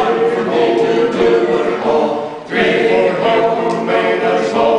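Men's chorus singing, in two sung phrases with a brief dip in level about halfway through.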